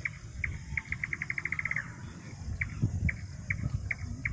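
A repeated chirping animal call: single high chirps a few tenths of a second apart speed up into a quick run of about a dozen notes, then fall back to slow single chirps, over a low rumble.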